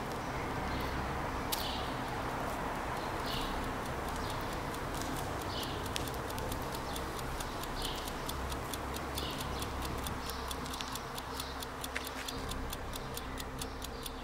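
Regular ticking that speeds up and grows denser toward the end, over a steady hum and hiss.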